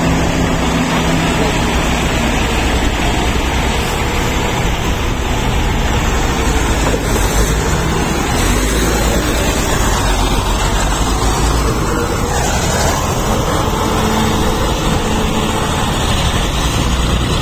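A crawler tractor's diesel engine running loudly and steadily.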